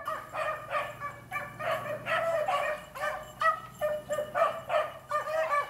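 Beagles baying: a quick run of short, repeated hound cries, about two to three a second, each bending down in pitch.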